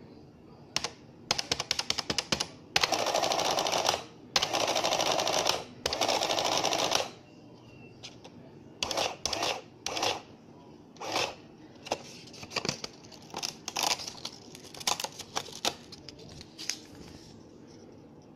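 Citizen CX-123 printing calculator's print mechanism rattling through three lines of printing on its paper tape, each line about a second long, after a run of quick clicks. Later come scattered clicks and short rattles from the machine.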